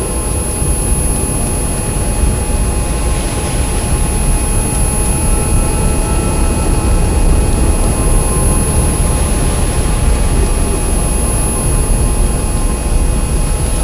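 Loud, steady, dense rumble like a jet engine, with several thin steady tones and a high whine over it. This is a heavily layered and compressed electronic drone track, not a real engine.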